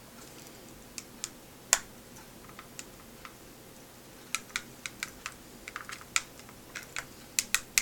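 Scattered light clicks and taps of the plastic housing of iWear AV230 XL video glasses being pried apart: a few isolated clicks at first, then a busier run of small clicks in the second half.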